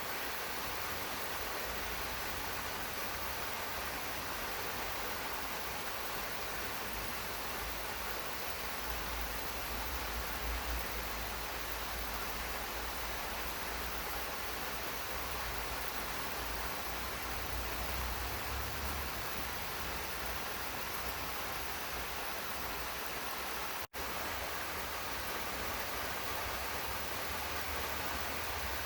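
Steady rain falling on a garden: an even, continuous hiss with a low rumble underneath. The sound cuts out for an instant about three quarters of the way through, then resumes unchanged.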